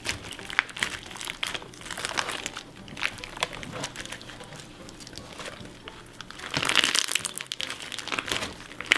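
Clear slime packed with cut pieces of jumbo plastic straws being squeezed and kneaded by hand: the straw pieces crunch and crackle in many small clicks. A louder stretch of crunching comes about six and a half seconds in.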